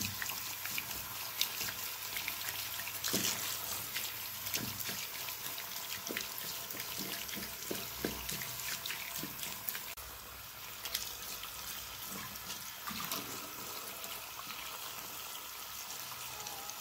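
Warm bath water running steadily, with small splashes, as a cat is washed.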